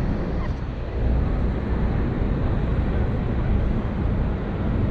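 Tour boat under way on the river: a steady low rumble of the boat with rushing air and water, growing a little louder about a second in, with wind noise on the microphone.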